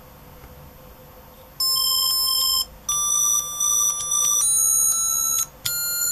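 Yamaha YMZ294 chiptune synthesizer chip playing square-wave beep tones as the board's keys are pressed: four held notes, starting about a second and a half in, each a little higher in pitch than the last.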